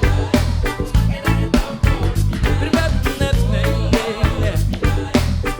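A band playing live: an upbeat ska-like groove with drums, bass and guitar, in an instrumental stretch between sung lines.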